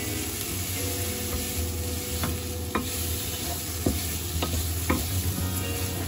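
Sliced onions and mushrooms sizzling in butter in a frying pan as flour is stirred in with a wooden spatula, which knocks against the pan about five times from about two seconds in; the butter is beginning to scorch.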